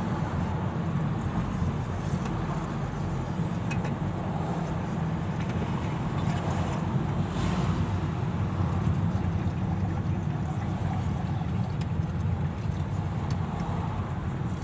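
Steady low engine and tyre rumble of a Honda car driving at town speed, heard from inside the cabin.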